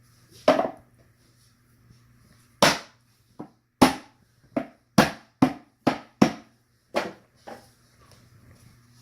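Hammer blows knocking the jointed wooden corners of a beehive box together: about eleven sharp knocks at an uneven pace, with a short run of quick strikes in the middle.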